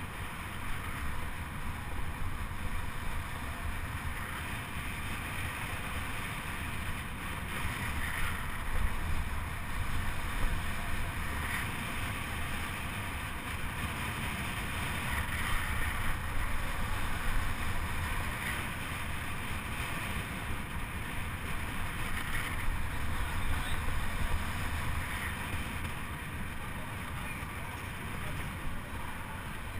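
Steady low rumble of a fixed-gear track bike rolling round the velodrome, with wind on the microphone, swelling and easing every few seconds.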